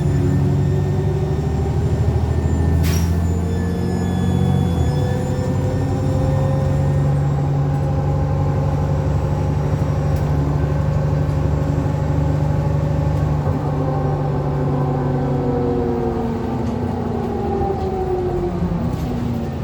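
Onboard a 2009 Alexander Dennis Enviro400 double-decker bus under way: the Euro 5 diesel engine pulls with a high turbo whistle that fades out after about eight seconds. The Voith automatic gearbox changes gear about five seconds in, and the differential whines, rising and later falling in pitch. A single sharp click comes about three seconds in.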